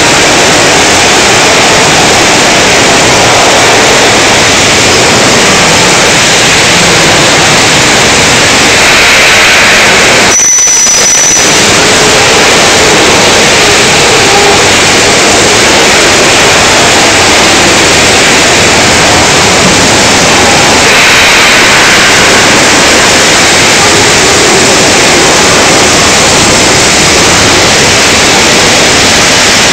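Loud, steady machinery noise from a running VZH-165 steel tube mill, with a brief dropout about ten seconds in.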